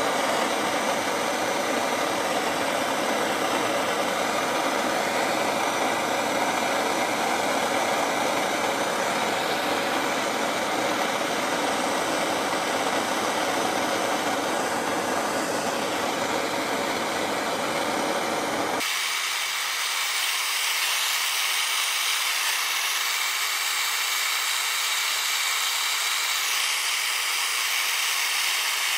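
Propane torch flame burning steadily as a screwdriver's steel shank is heated red hot for bending into a hook. About two-thirds through, the sound changes abruptly: the low rumble drops out, leaving a higher hiss.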